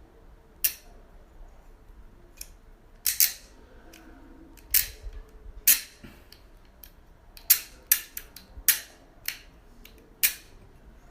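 Ratchet cable cutter clicking as its handle is worked to push the blade forward: about a dozen sharp clicks at uneven intervals, some in quick runs. The blade is stiff and needs great force to advance after cutting.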